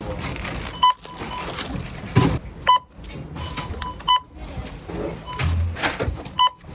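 Short electronic beeps, sounding several times at irregular intervals over busy background noise, with a few clicks.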